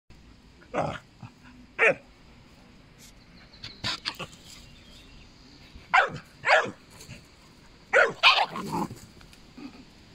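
A dog barking: about eight short barks, some in quick pairs, with gaps of a second or two between them.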